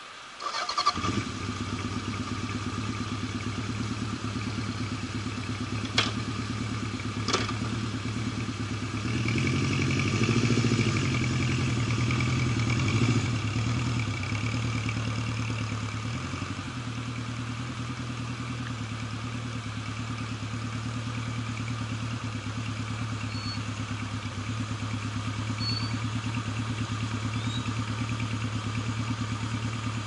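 Honda CB750's inline-four engine starting about a second in and then idling steadily, with a brief rise and fall in revs a third of the way through. Two sharp knocks come shortly before the revving.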